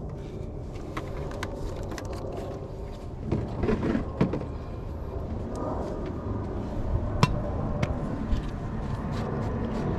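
Plastic knocks and clicks from an oil bottle and a plastic funnel being handled at the engine's oil filler, a cluster of knocks about three to four seconds in and a few sharp clicks near the end, over a steady low background rumble.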